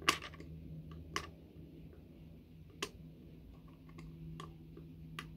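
A few sharp, irregularly spaced clicks and taps as fingers work the small rear doors of a 1:64 die-cast model lorry's trailer, over a faint steady hum.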